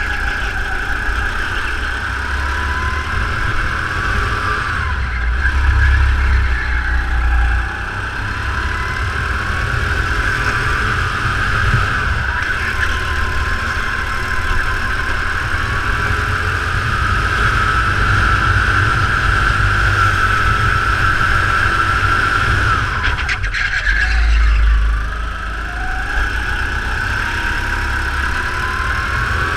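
Go-kart running at racing speed, heard from onboard: its motor note glides up and down in pitch through the corners over a steady low rumble. It briefly eases off twice, once about a quarter of the way in and once near the end.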